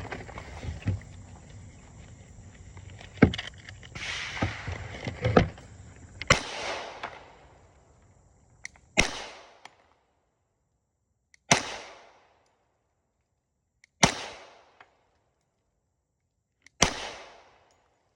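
10mm semi-automatic pistol fired slowly, one shot every two and a half to three seconds, each report followed by a short rolling echo. Rustling and handling noise sit under the first few shots.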